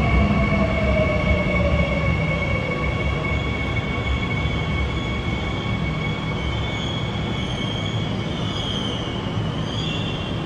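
Seoul Line 9 electric subway train (new Hyundai Rotem stock) braking to a stop at a station platform, heard through the platform screen doors. Its motor whine falls steadily in pitch over the first few seconds over a steady rumble and a high steady whine. A wavering high squeal comes in near the end as the train halts.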